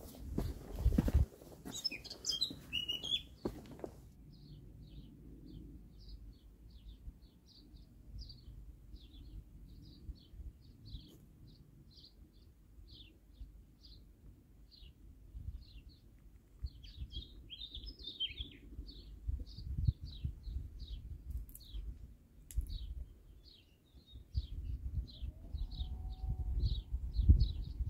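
A small songbird repeating a short, high chirp about twice a second, with a brief more tangled burst of song about two-thirds of the way through. Before the chirping, a few seconds of noise with low thumps cut off suddenly; a low rumble runs underneath and grows louder near the end.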